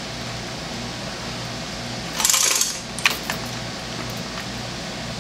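A wrench working a stubborn bottom mounting nut off a stud on a Borg Warner Velvet Drive transmission. About two seconds in comes a short metallic rasp, then two sharp metal clinks, over a steady background hum.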